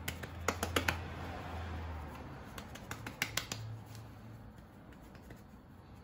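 Hands patting and pressing a ball of soft coxinha dough flat into a disc: quick, light slaps in small clusters, about half a second in and again around three seconds in, over a faint low hum.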